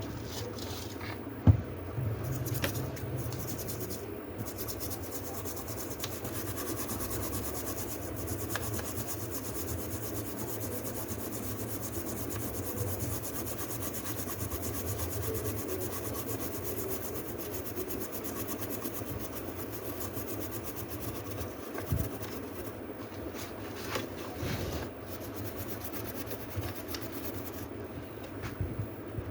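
Steady scratchy rubbing as corrosion from water damage is scrubbed off a laptop motherboard, with a sharp knock about a second and a half in.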